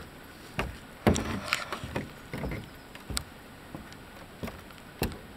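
Footsteps on the plank deck of a wooden footbridge, a hollow knock with each step, irregularly spaced about every half second to second, with the loudest steps around a second in.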